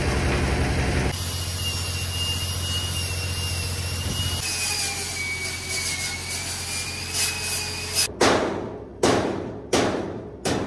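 Angle grinder running against the steel wall of a dumpster, a high steady whine over a low engine hum. Near the end come several short bursts of grinding that start sharply and die away.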